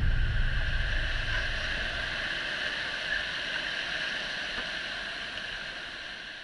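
Steady rush of water around a kayak on the canal, fading out gradually.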